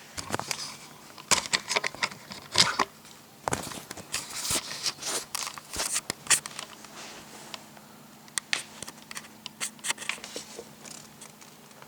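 Packaging rustling and crinkling, with sharp clicks and taps as the boxed RC truck and its plastic parts are handled. It comes in irregular bursts, busiest in the first half, and thins to scattered clicks later.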